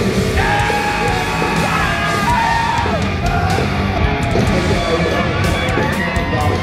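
Loud rock music with a yelled, sung vocal.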